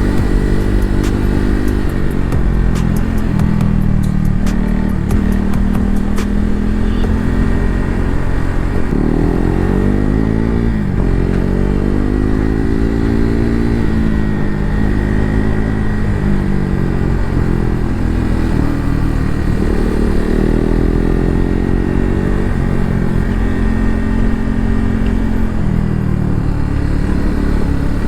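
KTM RC 390's single-cylinder engine running under way, heard from on board, its revs climbing and dropping several times.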